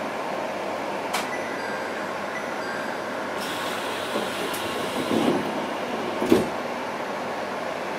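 Interior noise of a 701-series electric train: a steady hum of running equipment. A sharp click comes about a second in, a hiss of air from about three and a half seconds, and two knocks near the middle, the second the loudest.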